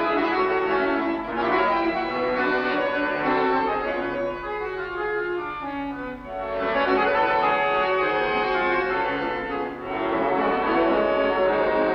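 Two bayans (Russian chromatic button accordions) playing a waltz together, sustained chords under a melody, with short lulls between phrases about six and ten seconds in.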